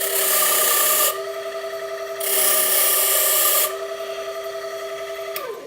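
GL320 key-cutting machine's motor running with a steady hum while a freshly cut key is buffed on its spinning brush: a loud hissing scrub at the start and again about two seconds in, each lasting a second or so. Near the end the motor winds down, its pitch falling as it stops.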